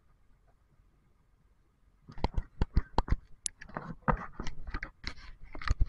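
Near silence for about two seconds, then a rapid, irregular run of sharp clicks and knocks.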